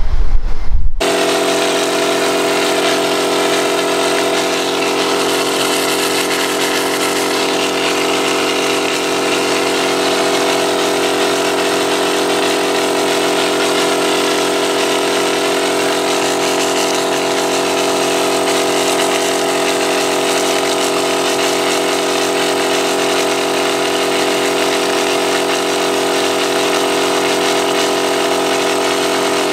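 Air compressor running steadily, driving the garden-sprayer aircrete foam generator as it pushes foam out of its nozzle. It is an even, unchanging motor drone that starts abruptly about a second in.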